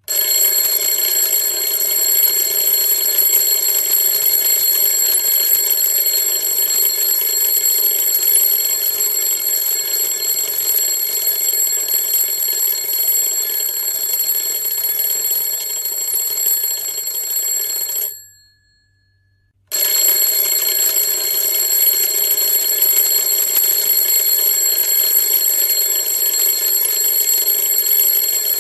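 Alarm clock bell ringing loudly and continuously, with a fast rattling strike. It dies away about 18 seconds in, stops for about a second and a half, then starts ringing again at full level.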